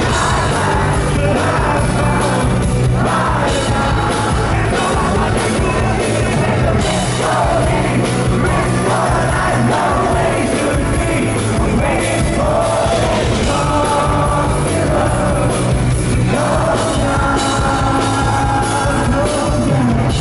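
Live rock band playing a song with a man singing the lead vocal, recorded from within the concert audience.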